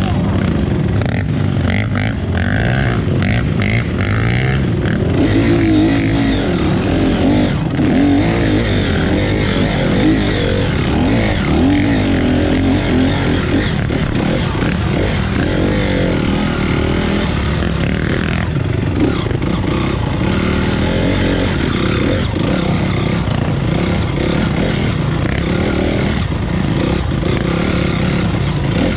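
Off-road motorcycle engine running while riding a trail, its note rising and falling with the throttle.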